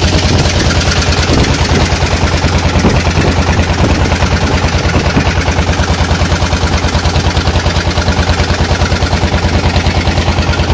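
Small fishing boat's motor running steadily, with a loud, even fast throb and a wash of noise above it.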